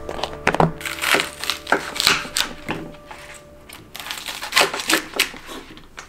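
A rigid plastic freezer container being handled, its lid pressed and snapped down with a series of sharp plastic clicks and crackles, over soft background music.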